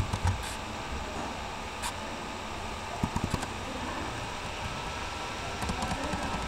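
Steady background hiss of room and microphone noise, like a running fan, with a few faint clicks about three seconds in and again near the end.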